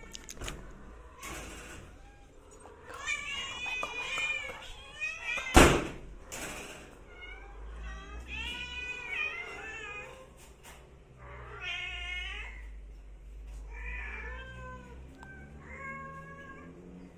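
A cat meowing again and again, drawn-out meows a few seconds apart, with one sharp knock about five and a half seconds in.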